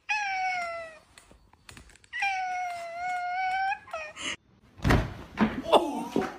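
Cat giving two long, drawn-out meows, each sagging slightly in pitch, then a short one. A few loud thumps follow near the end.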